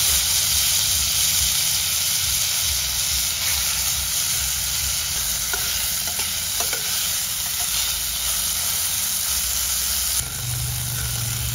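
Young velvet bean (kevanch) pods sizzling loudly as they fry in hot oil in a frying pan, turned now and then with a spatula. The sizzle eases slightly near the end, when a low hum comes in.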